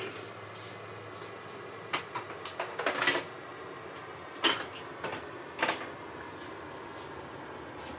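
A handful of sharp knocks and clatters, as of hard objects being picked up, handled and set down, over a steady faint hiss. The knocks cluster between about two and six seconds in.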